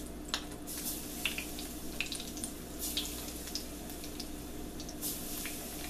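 Battered milkweed seedpods deep-frying in a small pan of hot oil: a steady sizzle with scattered crackles and pops as the batter cooks.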